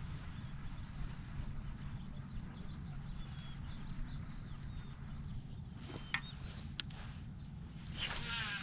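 Steady low rumble of wind on the microphone, with two sharp clicks a little past the middle. Near the end comes a short whir falling in pitch as a fishing rod is cast and line pays off the reel.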